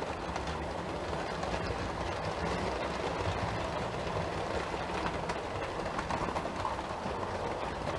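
OO gauge model train running on the layout: eight Tri-ang Mark 1 coaches hauled by an A2/2 locomotive roll past with a steady rumble of wheels on the track, with a few faint clicks.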